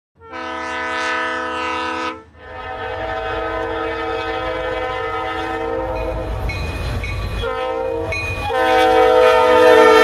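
A multi-chime train horn sounds cleanly for about two seconds with no background: the GTA 5 game's train horn sample. Then a real freight locomotive air horn blows long blasts over the rumble of a moving train, drops out briefly around seven seconds in, and comes back louder near the end. This Paducah & Louisville horn, on the train led by GP35 slug #2110, is offered as the possible source of the game horn.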